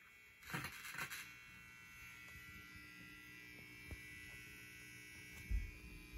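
Faint crackling and a steady low hum from a Lafayette LR-10008 stereo receiver under test at low volume, with crackles about half a second to a second in and a low thump near the end. The crackle is the sign of its dirty, scratchy volume control, still not cured by the contact cleaner.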